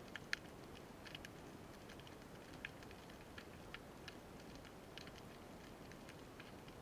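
Faint underwater ambience: a steady low hiss with scattered, irregular sharp clicks, the loudest just after the start.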